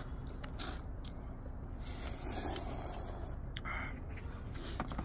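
People slurping and chewing hot instant ramen noodles: several short slurps, with a longer slurp about two seconds in, over a steady low rumble.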